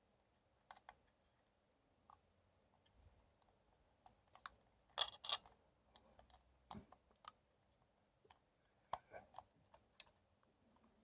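Scattered small clicks and taps of metal parts and tools handled while a coil is fitted into a rebuildable tank atomiser's deck, with the loudest cluster about five seconds in.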